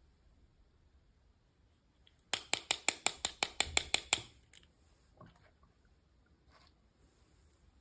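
A quick, even run of about a dozen sharp clicks lasting about two seconds, followed by a few single clicks, from small objects being handled.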